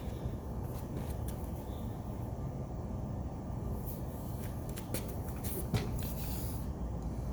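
Scattered light clicks and rustling from handling the exercise bike and its parts, over a steady low background rumble.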